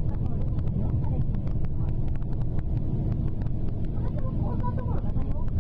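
Steady low rumble of road and engine noise inside a moving bus on an elevated expressway, with a rapid, even ticking of about five clicks a second running through it.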